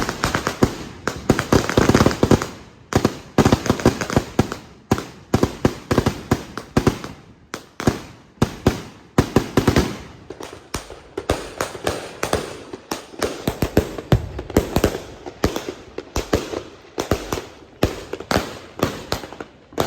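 Fireworks going off in quick succession: a dense, unbroken string of sharp cracks and bangs, with thicker clusters of crackling at a few points.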